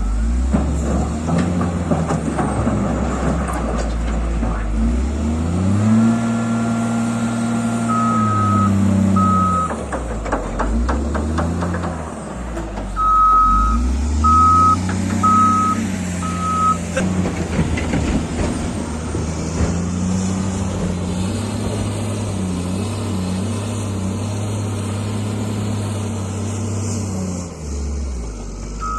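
Diesel engine of a heavy construction machine working, revving up and dropping back several times, with a reversing alarm beeping about once a second in two runs and some clattering knocks between them.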